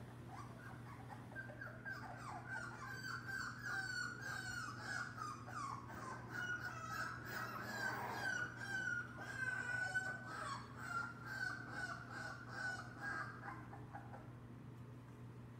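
Young lab-mix puppies whining and yelping during play, a long run of short, high-pitched cries, some overlapping, over a steady low hum.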